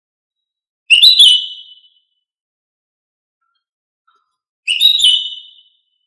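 Female greater green leafbird giving two whistled calls, about a second in and again near the end, each a sharp note settling into a short whistle that fades out.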